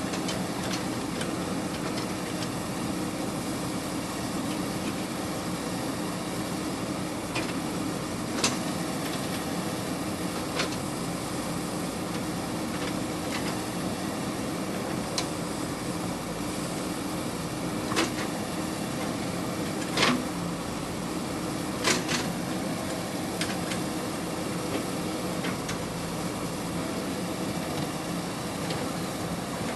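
JCB 3DX backhoe loader's diesel engine running steadily, with a few sharp knocks scattered through the stretch.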